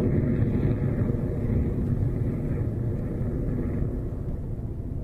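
Rocket Lab Electron's first stage, its nine Rutherford engines firing during ascent, heard as a steady low rumble that slowly fades as the rocket climbs away.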